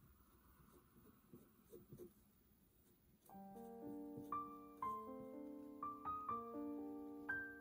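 Faint scratchy dabs of a paintbrush spreading glue onto a fabric heart. About three seconds in, soft solo piano music comes in with held notes and becomes the loudest sound.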